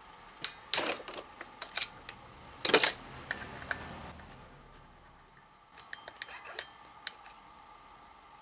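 Metal hand tools and clutch parts clinking and clanking while a clutch bell is worked loose from an engine crankshaft. There is a run of sharp clanks in the first three seconds, the loudest near three seconds in, then a few lighter clinks around six to seven seconds.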